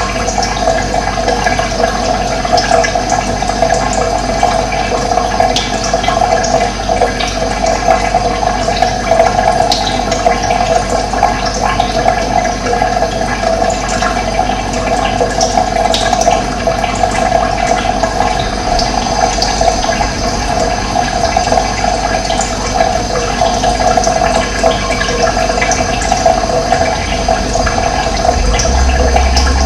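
Running water rushing steadily, with scattered faint bird chirps over it; a low hum comes in near the end.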